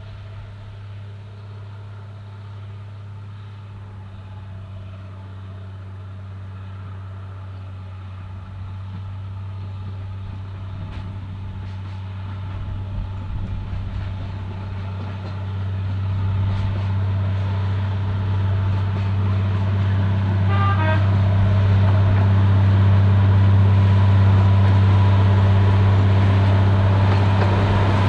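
Narrow-gauge Bo-Bo diesel locomotive's engine running as it approaches, a steady low hum growing louder as it draws near, with a short horn toot about three-quarters of the way in.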